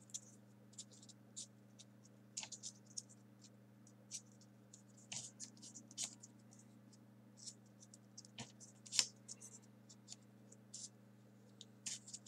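Small folded paper pieces of a 3D origami model rustling and clicking faintly as they are handled and pushed into place, in irregular small scratches with one louder one late in, over a low steady hum.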